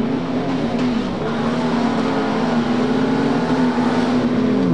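Four-wheel-drive competition truck's engine revving hard and held at high revs, dipping briefly about a second in, then starting to drop off at the end.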